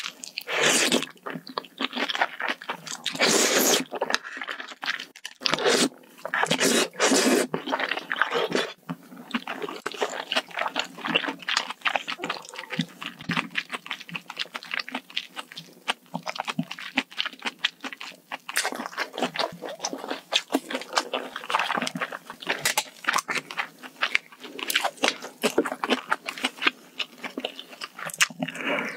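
A person chewing and crunching spicy malatang hot pot close to an ASMR microphone: a dense, irregular run of wet mouth clicks and crunches.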